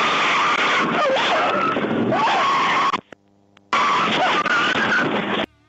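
Pickup truck's tyres squealing under wheelspin in a smoky burnout, with its engine running hard. The sound is loud and steady, drops out for under a second about three seconds in, then comes back and cuts off abruptly shortly before the end.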